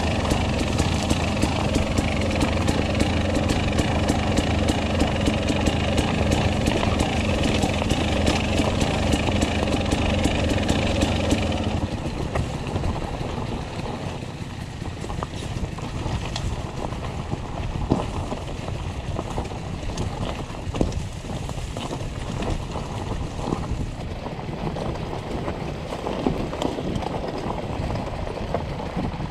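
Enduro dirt bike engine running steadily at a low, even speed. About twelve seconds in it drops away, leaving a rougher noise with scattered clicks and knocks.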